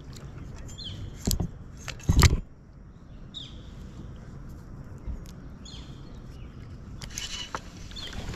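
Fishing gear being handled in a plastic kayak: two sharp knocks about one and two seconds in, then scattered lighter clicks and scrapes.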